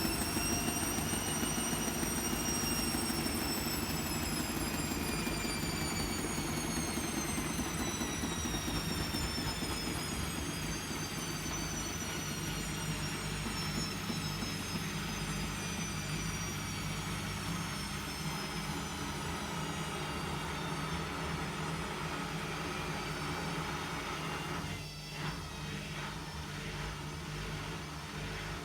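Hotpoint WMFUG742 washing machine spinning a heavy load of towels: the motor whine peaks a second or two in, then falls slowly in pitch as the drum winds down, over a steady low hum. A brief dip with a few knocks comes near the end.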